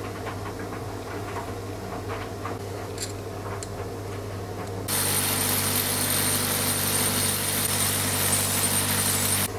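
Bench polisher with a brass wire brush wheel. A low steady hum at first, then about five seconds in a much louder steady whirring hiss as a small brass screw collar held in pliers is wire-brushed on the spinning wheel. The hiss stops abruptly near the end.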